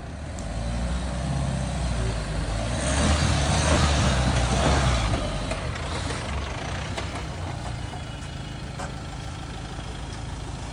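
Mahindra Thar SUV's engine revving as it drives up in four-wheel drive, growing louder to a peak about three to five seconds in, then dropping back to a steady lower run.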